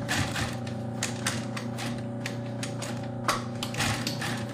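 Industrial post-bed sewing machine stitching through a shoe upper at a slow pace: a steady motor hum under irregular sharp clicks of the needle and feed.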